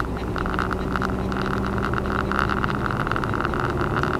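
Car driving, heard from inside the cabin: a steady engine hum with road noise.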